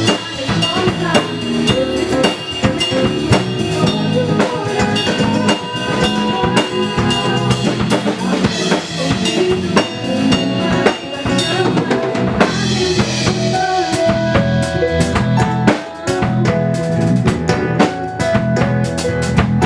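A band playing live: a drum kit with bass drum and rimshots keeping a beat under sustained instrument notes, with no singing.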